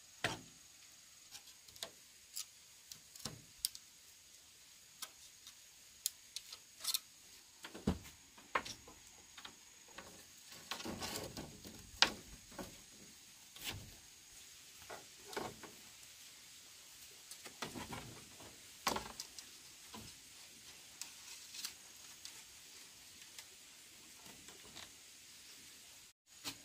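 Irregular light knocks and clicks, a few seconds apart and denser for a couple of seconds near the middle, over a faint steady high insect drone.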